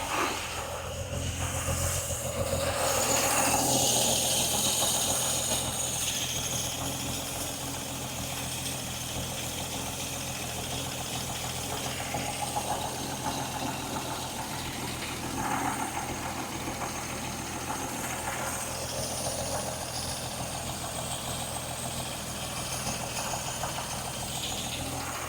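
Vauxhall Royale's 2.8-litre straight-six idling steadily while its carburettor mixture is tuned, running slightly rich. It gets a little louder for a few seconds near the start.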